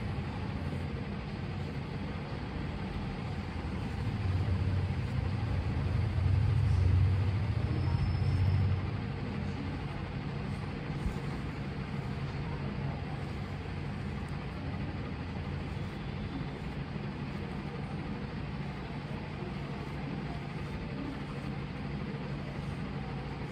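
Steady low background rumble, swelling louder for a few seconds between about four and nine seconds in, then settling back.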